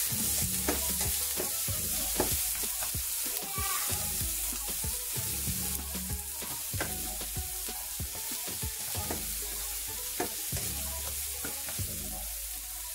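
Diced carrots, bell peppers and onions sizzling in oil in a nonstick frying pan, with a steady hiss, while a plastic spatula stirs them, scraping and tapping the pan at irregular moments.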